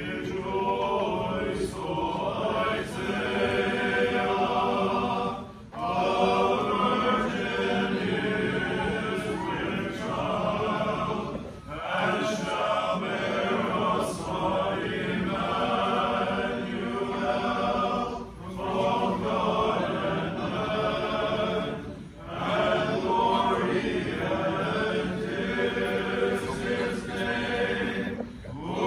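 Church choir singing an unaccompanied Orthodox liturgical chant, in sung phrases broken by short pauses every few seconds.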